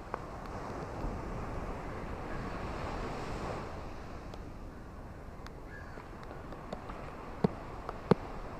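Steady rain with ocean surf, the wash swelling for a few seconds early on and then easing. Near the end, a couple of sharp close taps, like heavy drops striking something hard, stand out above the rain.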